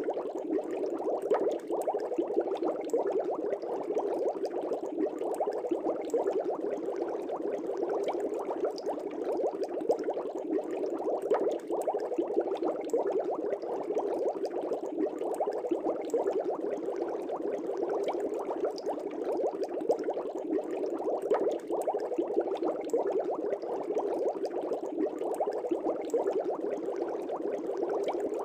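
Aquarium air bubbles streaming up through the water in a fish tank: a continuous dense bubbling and gurgling, steady throughout, with many small pops.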